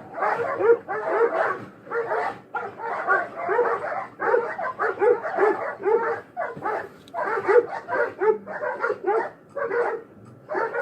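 A dog barking over and over in quick runs, with a few short breaks between them.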